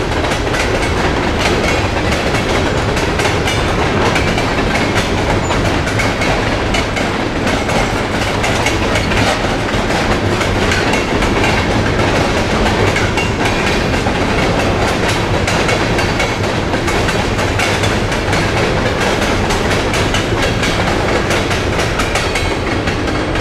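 A freight train's cars rolling steadily across an overpass, their wheels clattering over the rail joints in a continuous dense clatter.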